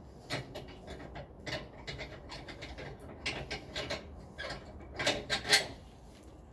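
Irregular metal clicks and scrapes from a hand-worked fitting at the rear of a pickup truck's tray, with the loudest cluster about five seconds in.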